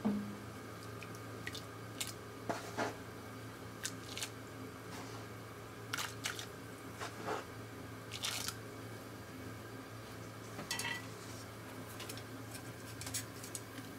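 Fresh ramen noodles dropped by hand into a stainless steel pot of hot water, with a dozen or so scattered light splashes and clinks over a steady low hum.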